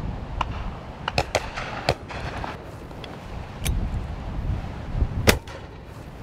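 Shotgun shots on a driven game shoot: several fainter shots in the first four seconds, then one loud close shot about five seconds in. Gusting gale-force wind buffets the microphone throughout.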